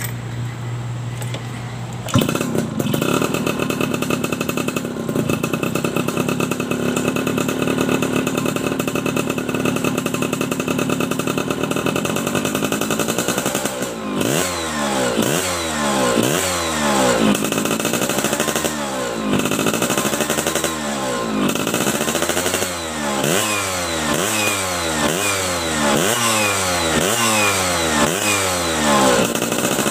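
Yamaha F1ZR two-stroke single-cylinder engine with a drilled-open air-filter box and an aftermarket exhaust. It comes in loud about two seconds in and idles steadily. From about halfway it is blipped up and down about once a second, giving the raspy intake growl that the drilled filter box is meant to make.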